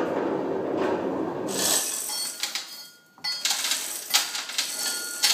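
A hand chain hoist's chain running through its pulley with a steady rattle as it is pulled. About two seconds in, this gives way to a run of sharp metallic clinks and short rings as the hoist chain and hook jingle and the cast-iron tractor hub is shifted against the lathe chuck.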